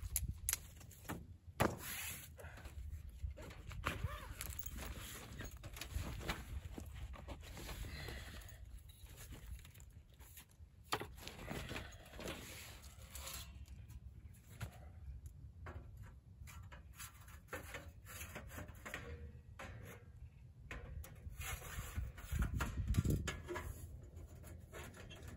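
Camping gear being handled at a tent door: nylon tent fabric and a canvas bag rustling, dry leaves crunching, and scattered small knocks and clicks over a low rumble. Near the end, a louder stretch of scraping and knocking as a metal tent wood stove is set in place.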